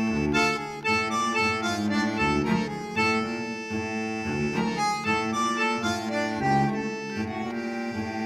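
Background music: a melody of changing notes over a low note held throughout.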